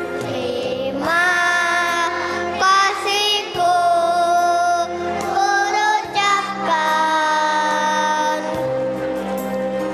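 Kindergarten children's choir singing a song over steady instrumental accompaniment, with several long held notes.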